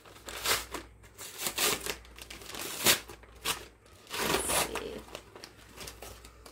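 Crinkling and tearing of a heavily taped package as it is handled and picked open by hand, in irregular rustles with one sharp crackle about three seconds in.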